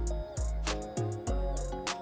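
Background music with a steady beat, deep bass pulses and a melody of short stepping notes.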